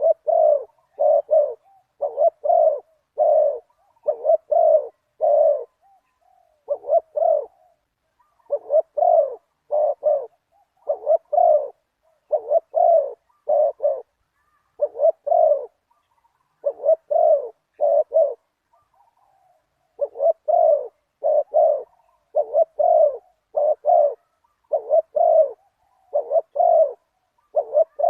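Spotted doves cooing: short low coos repeated in runs of two or three, with brief pauses between runs.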